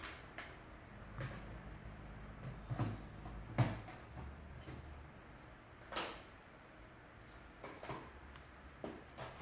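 Scattered light clicks and knocks, about eight spread over several seconds, the loudest around three and a half and six seconds in, from handling at the dryer oven, with a low hum between about one and five seconds in.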